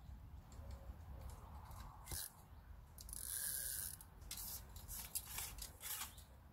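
Faint rustling and small clicks of fishing tackle being handled, with a brief hiss about three seconds in.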